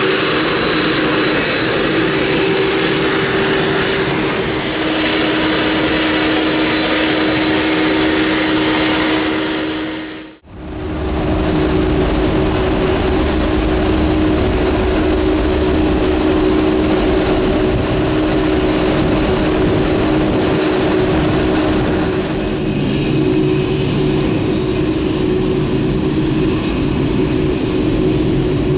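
Jet engines of a Boeing 747-400 running, a steady roar with a high whine. The sound fades out briefly about ten seconds in, then the engine noise carries on steadily.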